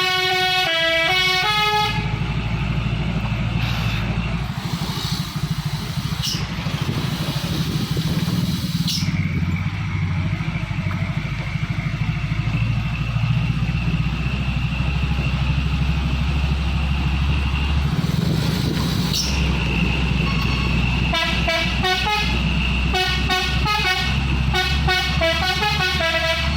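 A dump truck's telolet musical horn plays a quick tune of changing notes. It gives way to a heavy engine rumble, and the horn tune starts again near the end.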